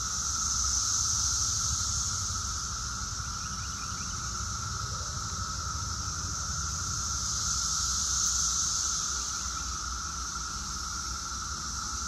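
Brood X periodical cicadas in their mating chorus at its peak: a dense, unbroken drone with a high whine over a lower steady hum, swelling slightly about a second in and again about two-thirds through.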